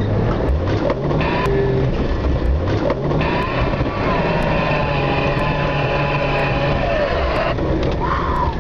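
Vehicle engine and driving noise heard from inside the cab while plowing through deep snow, steady and loud, with a smooth whine that drifts up and down in pitch through the middle.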